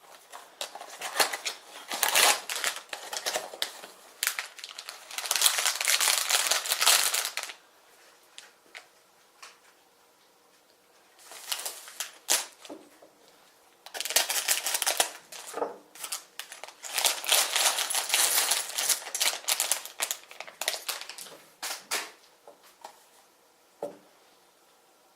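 Plastic toy building bricks and their plastic packaging being handled: crinkling and clicking in several bouts separated by quiet pauses, with a few single clicks near the end.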